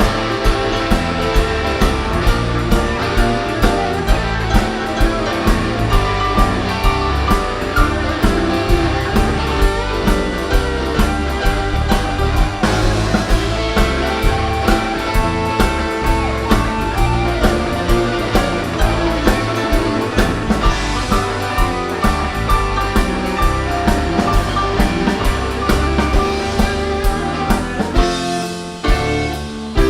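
A rock band playing an instrumental passage live, with no vocals: a drum kit keeps a steady beat under electric guitar. The band drops back briefly about a second before the end, then comes in again.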